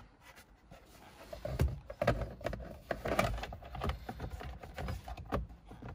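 Plastic lower steering-column shroud being handled and fitted into place: irregular clicks and knocks of plastic against plastic, with scraping and rustling in between.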